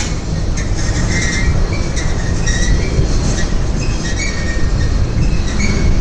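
Mixed freight train of boxcars and tank cars rolling past close by: a steady heavy rumble of steel wheels on rail, with some clacking and many short, high-pitched wheel squeals.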